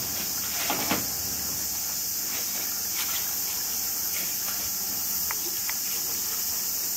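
Steady, high-pitched shrilling of an insect chorus, with a few faint clicks.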